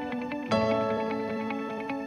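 Background music: a new chord is struck about half a second in and held.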